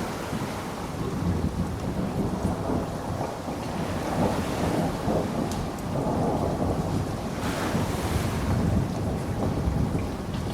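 Steady rain with thunder rumbling low and unevenly throughout, swelling and easing. About seven and a half seconds in, a brighter burst of hiss rises for about a second.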